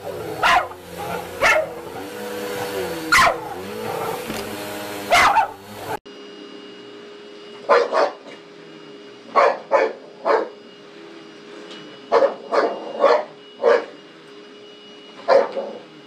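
Dogs barking at running upright vacuum cleaners. A handful of sharp barks come over one vacuum's hum, then after an abrupt change about six seconds in a second dog barks in quick doubles and triples over the steady whine of another vacuum.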